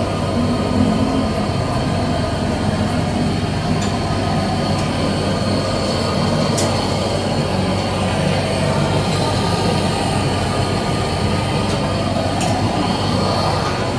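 Steady mechanical drone with a low hum, under a few faint clicks.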